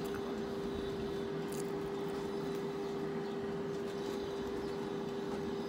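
A steady machine hum held on one pitch over faint background hiss, with a faint small click about a second and a half in.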